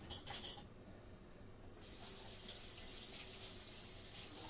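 A few light clinks, then a kitchen sink faucet turned on about two seconds in, its water running steadily into the sink for hand-washing.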